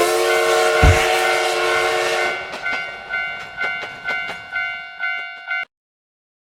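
Cartoon train sound effects: a steady multi-note train horn over a rushing train noise, with a single thump about a second in. Then a Japanese railway crossing bell rings "kan-kan" about twice a second, each strike fading, until it cuts off suddenly near the end.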